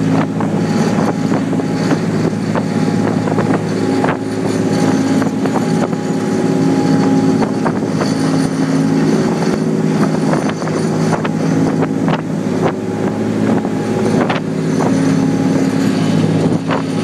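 Three John Deere inline six-cylinder diesel engines of a fishing boat running steadily under way with an even, deep hum. The rush of the churning wake and wind buffeting the microphone lie over it.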